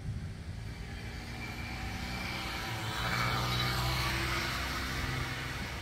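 A motor vehicle's engine running and passing by, growing louder to a peak about three to four seconds in, then easing off.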